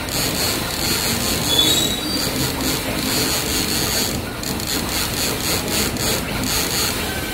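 A PUR hot-melt dot-glue dispensing machine running as its gantry head moves and lays glue dots: a rapid, even mechanical ticking with a steady high whine.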